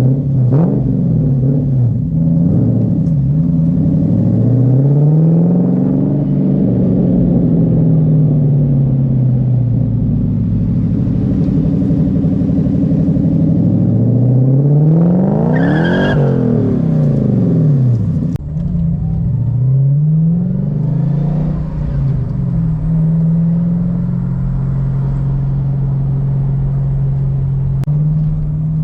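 Supercharged Lexus GS400 V8 running through its new large exhaust tips while driven hard, its pitch climbing and falling repeatedly through revs and gear changes. The longest climb peaks about halfway through and falls away sharply a couple of seconds later.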